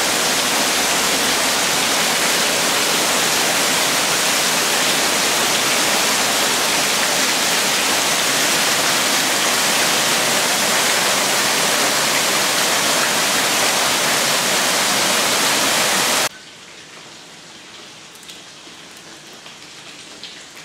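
Heavy downpour of rain hammering a tiled terrace and pouring off an awning edge, a loud, steady hiss. About sixteen seconds in it cuts off suddenly to a much quieter, muffled patter with a few drips, heard through a closed glass door.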